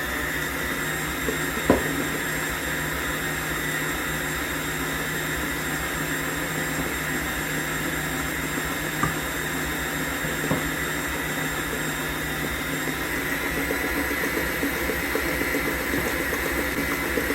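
Electric stand mixer running steadily on its beat setting, its beater attachment working thick pound cake batter in the bowl. A few brief light knocks sound over it, the loudest about two seconds in.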